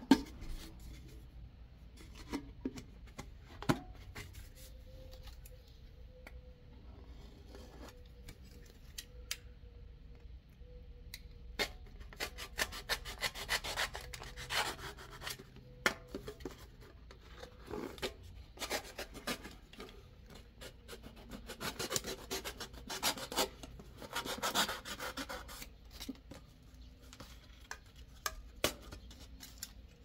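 Utility knife blade sawing and scraping through the wall of a Pringles can (foil-lined cardboard tube), heard as bursts of scratchy, rasping strokes through the middle and later part. Before them come scattered clicks and knocks of the can and knife being handled.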